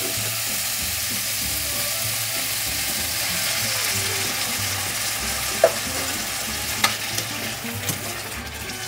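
Olives sizzling in hot olive oil in a stainless steel frying pan, a steady hiss. A couple of sharp clinks come about six and seven seconds in. The sizzle dies down near the end as a tin of cherry tomatoes is poured into the hot oil.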